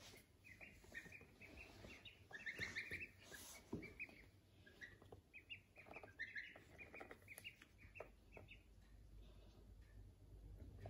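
Ducklings peeping: faint, short high chirps in quick runs, with pauses between the runs.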